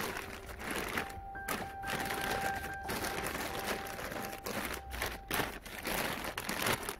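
Thin clear plastic sheeting crinkling and rustling in irregular bursts as hands pull it up and tuck it around potted plants.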